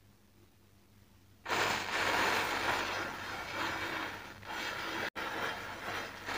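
Quiet at first, then about a second and a half in a sudden fizzing hiss as a row of wooden match heads catches fire and flares up one after another, going on with swells and dips.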